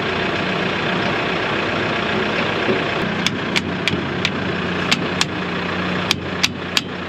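Kioti tractor's diesel engine idling steadily. From about three seconds in, a hammer taps sharply on the mower driveshaft's yoke in short runs of two or three, about three taps a second, knocking the yoke onto the tractor's PTO shaft.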